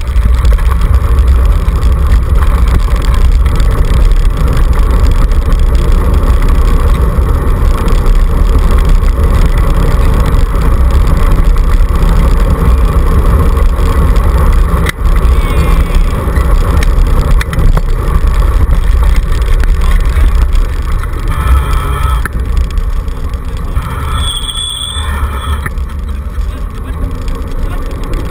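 Dog scooter moving fast over a gravel forest road behind a two-dog team: a loud, steady low rumble of wind buffeting the camera microphone and the wheels rolling on gravel. A brief high squeal comes near the end.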